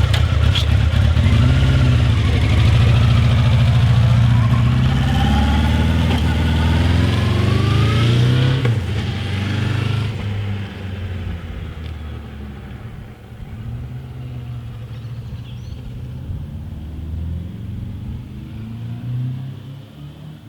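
Suzuki GSX-R750 SRAD sportbike's inline-four pulling away, its revs climbing in several rising sweeps through the gears, then fading into the distance after about ten seconds. The engine is slightly flooded, with the choke not fully off, and is not running nicely.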